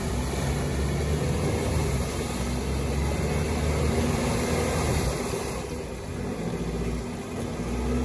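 Off-road 4x4's engine running under load as it crawls through deep mud, the note easing off about five and a half seconds in and picking up again near the end.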